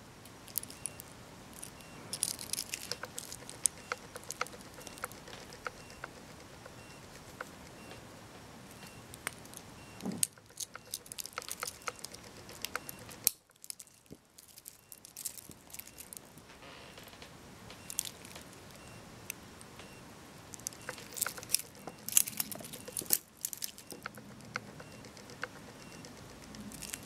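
Metal link bracelet of an Invicta Pro Diver 8929OB wristwatch clinking and jingling as it is handled and turned over, in scattered light clicks with busier flurries now and then.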